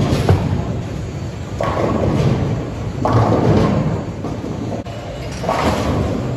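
Bowling alley noise: a low rolling rumble of bowling balls on the lanes, with pins crashing three times about a second or two apart.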